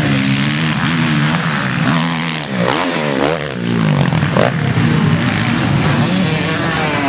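Motocross dirt-bike engines revving as the bikes pass, their pitch climbing and falling as the riders work the throttle. Around the middle, several engine notes overlap and cross as more than one bike goes by.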